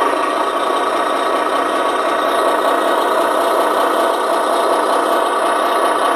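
Built-in sound effect of a 2019 Hess toy tow truck: a recorded truck engine running steadily, played through the toy's small speaker, so it sounds tinny with no low end.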